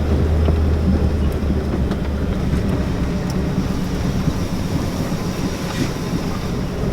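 Ford F-350 pickup truck's engine running with a steady low drone, a few small clicks and knocks over it.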